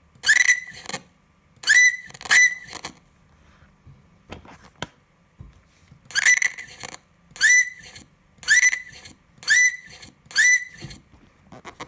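Shrill whistles repeated eight times, each about half a second long, sliding quickly up and then holding its pitch. Three come close together, then after a pause of about three seconds five more follow at roughly one a second.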